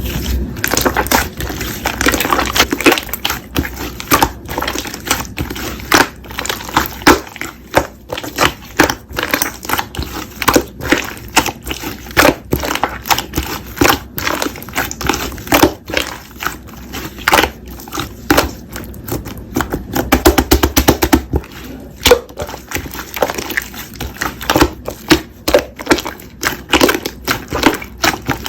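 Slime being squeezed and pressed by hand, making a run of sharp, irregular crackles and pops, several a second.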